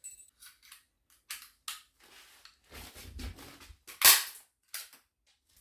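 Staple gun firing, one loud sharp snap about four seconds in, among scattered lighter clicks and rustling from handling.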